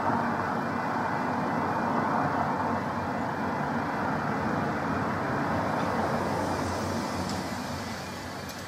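Level crossing warning alarm sounding as the road lights flash red, heard faintly under a steady rumble of road traffic that fades over the last couple of seconds.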